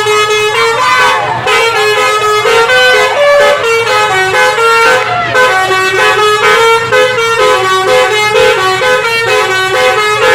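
An Indonesian tourist bus's 'telolet' basuri musical air horn plays a melody of short notes that step up and down in pitch. It sounds loud and without a break.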